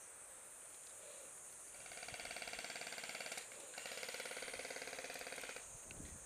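Airsoft electric rifle firing full-auto in two bursts of a second and a half to two seconds each, a fast, even mechanical rattle of the motor and gearbox cycling, with a short gap between them.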